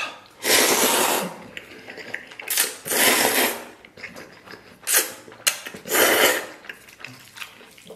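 A person slurping noodles with loud, hissing sucks, about five of them, the longest about a second, with short pauses between.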